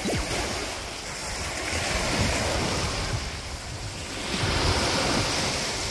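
Sea surf washing onto a beach, with wind buffeting the microphone; the waves swell louder about two seconds in and again near the end.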